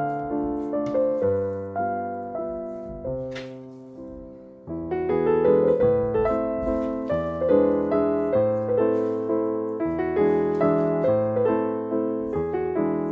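Background piano music: a gentle melody of piano notes, each struck and fading, thinning out for a moment about four seconds in before picking up again.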